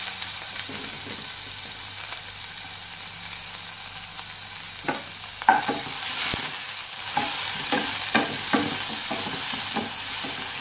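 Sliced onion sizzling in hot oil in a pot. From about halfway through, a wooden spatula scrapes and knocks against the pot as the onion is stirred.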